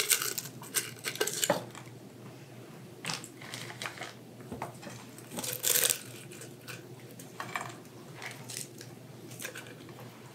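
Crinkling and rustling of dried sage sprigs being handled and pushed into the cavities of raw whole chickens, in scattered short bursts with small clicks, the loudest rustle about six seconds in.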